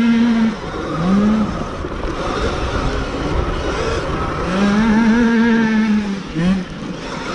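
Sur-Ron electric dirt bike ridden off-road, heard from on board: its motor whine comes and goes with the throttle. The whine cuts out about half a second in, rises briefly near a second and a half, and is held again from about four and a half to six seconds. A rough rumble and wind noise run underneath.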